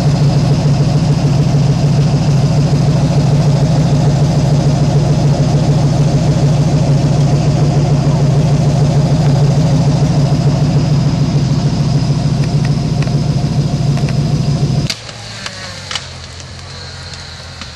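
Off-road truck engine running loud and steady at an even speed close by. About fifteen seconds in the sound cuts off abruptly to a much quieter background with a few sharp clicks.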